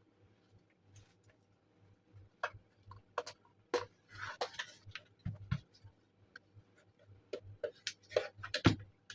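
Irregular clicks and taps with a brief scrape about four seconds in and a few low knocks, the loudest near the end: a small Bluetooth speaker being handled and worked open by hand.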